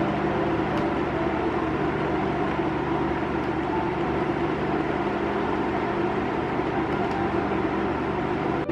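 Sunhow IH-700 induction cooktop running at its highest power setting with a pot of water on it: a steady whir from its cooling fan and an electrical hum. A few faint clicks come as the power button is pressed.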